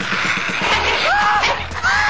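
Loud, harsh hissing commotion of a beaver attack, with shrill screeching cries that rise, hold and drop, about a second in and again near the end.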